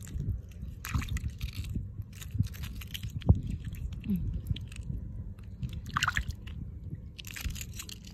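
Fingers digging into wet, shelly tidal mud, with irregular wet squelches and crunches as the mud is pushed aside.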